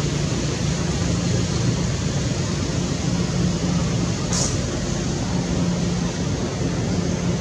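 Steady, loud rushing noise with an unsteady low hum underneath, and one brief high squeak about four seconds in.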